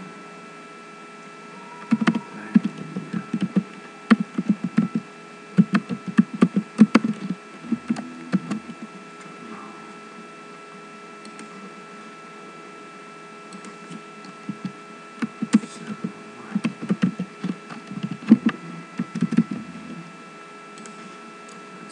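Computer keyboard typing in two bursts of rapid clicks, the first about two to nine seconds in and the second from about fourteen to twenty seconds, over a steady background hum.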